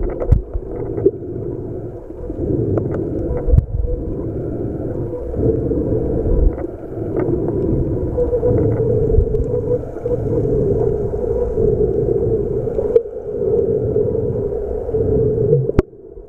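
Muffled underwater sound picked up by a camera held under shallow sea water: a steady low rumble of moving water with a dull hum, broken by scattered light clicks and knocks.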